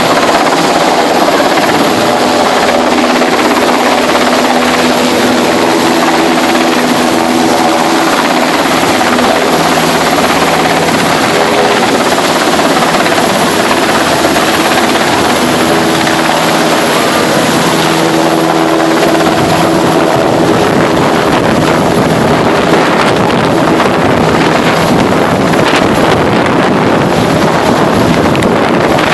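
Helicopter flying close by: a loud, continuous rotor and engine noise with steady tones that shift slightly in pitch as it moves.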